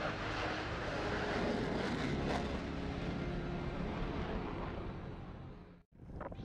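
Airplanes flying over the airfield, a steady engine noise with a low drone in it, fading and cutting off suddenly near the end.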